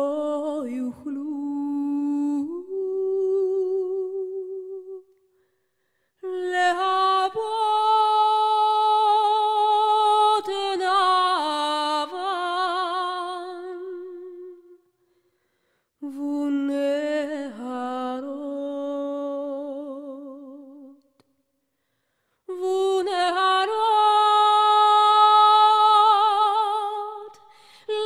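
Background music: a solo voice singing a slow melody in long, wavering held notes, in four phrases with short silent breaks between them.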